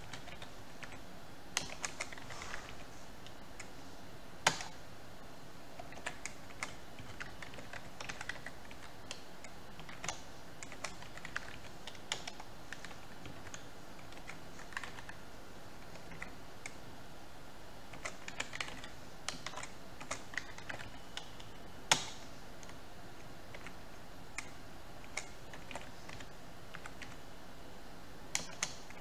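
Computer keyboard typing: irregular keystrokes in short runs with pauses between them, over a faint steady hiss. Two louder single clicks stand out, one about four seconds in and one a little past the twenty-second mark.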